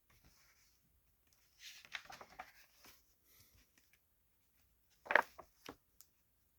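Paper pages of a 1920 plumbing catalog being handled and turned: a soft rustle about two seconds in, then a sharper, crisper rustle about five seconds in.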